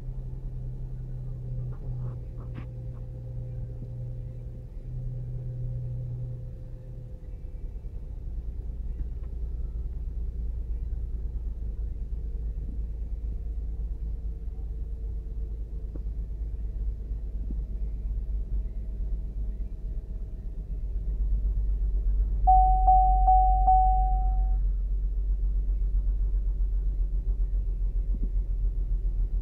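2008 Saturn Outlook's 3.6-litre V6 running after a cold start, the condition in which this engine misfires, heard as a steady low rumble that gets louder about three-quarters of the way through. Just after that, a steady beep sounds for about two seconds.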